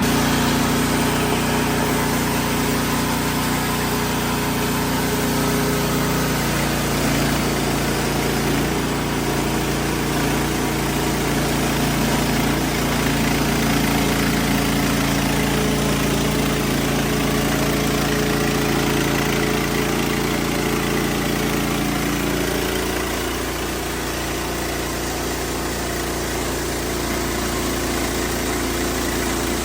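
Portable band sawmill's gas engine running steadily. Its pitch shifts a little several times, and the sound drops slightly in level about 23 seconds in.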